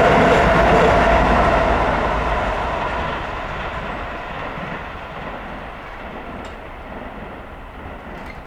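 A train running past and away, its rolling noise fading steadily after about a second.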